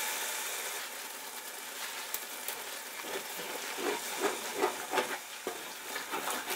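Masala paste sizzling in hot oil and ghee in an aluminium pot, with water just added to it. From about three seconds in, a wooden spatula stirs and scrapes it, about three strokes a second.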